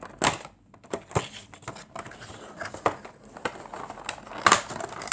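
Packaging being handled and unwrapped by hand: crinkling and rustling in short, irregular bursts, with a few sharper rustles about a second apart.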